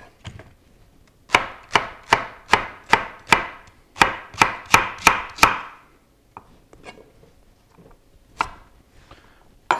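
Kitchen knife chopping celery: two quick runs of sharp chops, about three a second and over a dozen in all, then a few light taps near the end.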